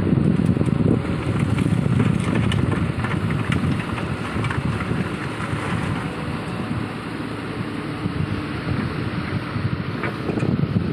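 Excavator's diesel engine running steadily, with wind buffeting the microphone; a little louder in the first couple of seconds.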